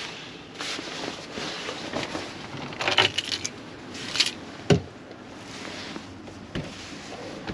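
Handling noises: a scatter of clicks and knocks, busiest about three to four seconds in, with a low thump just before five seconds and a smaller one a little later.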